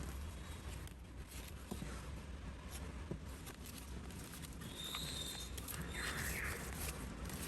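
Paper crafting handling noises: scattered light taps and clicks of paper and small tools over a low steady hum, with a brief high squeak about five to six seconds in.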